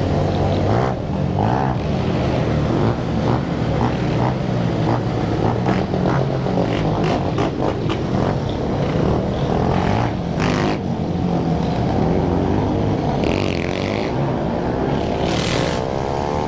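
Many motorcycle engines running and revving together, with frequent short sharp cracks, and two brief hissing bursts near the end.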